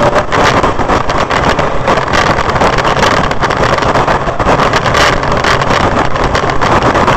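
Steady road and wind noise of a car driving at highway speed, heard from inside the cabin through a dashcam microphone.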